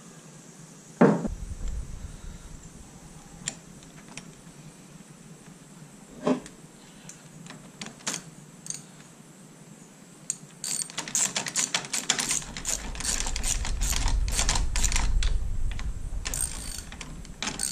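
A knock about a second in and another near six seconds, then from about ten seconds a hand ratchet clicking rapidly in spurts as the bolt of a motorcycle shifter peg is turned.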